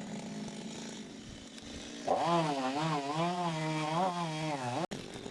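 Two-stroke chainsaw running, faint at first. About two seconds in it gets louder, its pitch dipping and rising as the engine works under load in the cut, then cuts off suddenly near the end.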